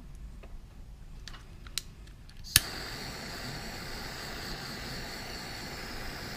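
A small handheld butane torch clicks alight about two and a half seconds in and hisses steadily, its flame heating heat-shrink tubing over a soldered wire joint; it is still hissing at the end. Before it lights, a few faint clicks of wire being handled.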